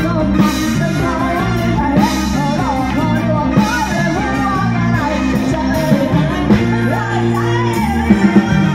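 A live band playing Thai ramwong dance music through a PA, with a woman singing over electric guitar, bass and drums.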